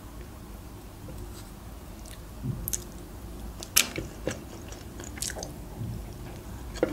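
Close-up chewing of stuffed mussels (mussel dolma with rice filling). From about two and a half seconds in come a few short sharp clicks of the fork against the shells and the board, the loudest a little under four seconds in.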